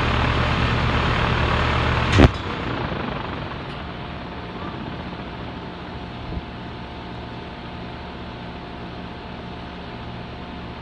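A compressor running with a steady loud hum, then shutting off with a sharp click about two seconds in. Its noise dies away over the next second or so, leaving a quieter steady hum and one small knock later on.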